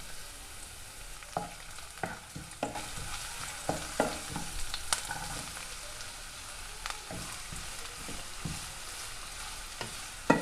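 Onion, green chilli, garlic and ginger sizzling in coconut oil in a pan while a spatula stirs them, knocking and scraping irregularly against the pan, with one loud knock near the end.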